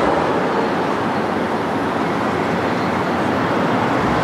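Steady urban din with a constant low rumble like passing traffic, no single event standing out.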